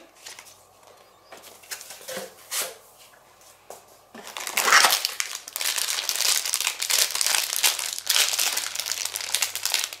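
Soft rustles of paper and packaging being handled. About four seconds in, loud, continuous crinkling begins: a plastic packaging bag around an accessory being handled and lifted out of the box.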